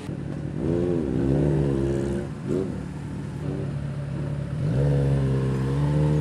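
Motorcycle engine running under changing throttle: its pitch dips and climbs about a second in, rises and falls quickly near the middle, then climbs to a steady held note that drops away near the end.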